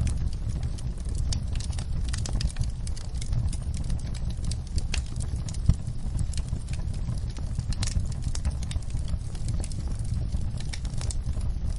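Wood fire crackling and popping at irregular intervals over a low steady rumble, with one sharper pop a little past halfway.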